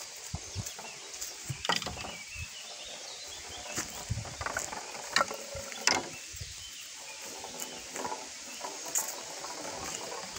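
A small ball rolling and rattling along a wooden-plank marble run, with sharp knocks as it hits the rails and drops from one plank onto the next.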